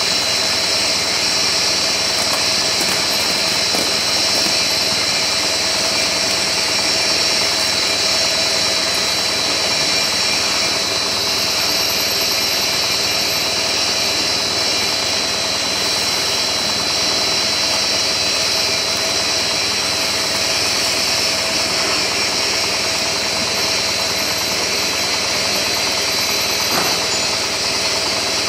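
FTPE-1200 bubble film machine running steadily: a continuous mechanical hum and hiss with a steady high whine.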